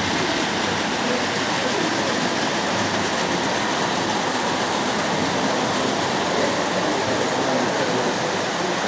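Tinplate O gauge model trains running on their track: a steady whirring rattle of wheels on tinplate rails.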